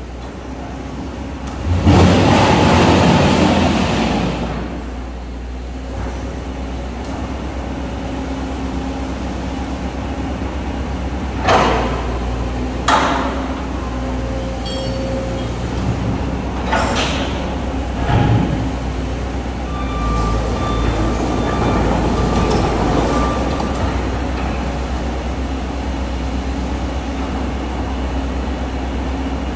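Komatsu PC200 hydraulic excavator's diesel engine running steadily as its bucket pushes against a rusted steel hopper. A loud rush of noise lasts about two seconds near the start, then come several sharp metal bangs and scrapes, with brief squeals of straining metal.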